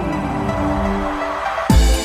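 Electronic background music: held synth tones, then a heavy bass beat with falling bass drops kicking in near the end.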